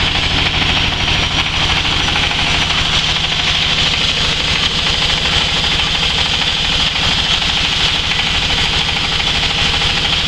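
Stainless steel hammer mill with cyclone running steadily while grinding, discharging fine white flour from the cyclone. It makes a low, rapidly throbbing drone under a bright, even hiss.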